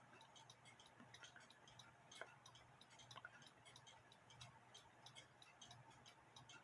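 Near silence, with a clock ticking faintly and evenly over a faint low hum.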